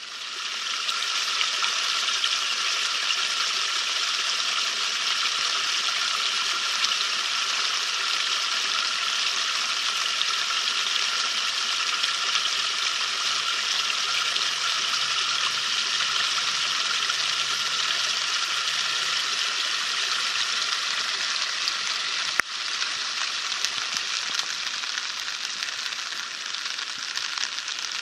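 Stormwater gushing and splashing through a street storm drain grate, a steady rushing hiss of water. There is a single sharp tap about three-quarters of the way through.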